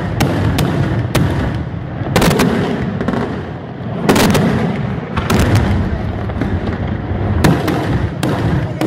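Daytime fireworks: aerial shells bursting overhead in loud, sharp bangs at irregular intervals, several coming in quick clusters, over a constant low rumble.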